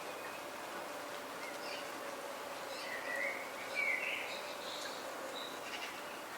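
Birds chirping in a garden over a steady hiss of rain, with two louder calls about three and four seconds in.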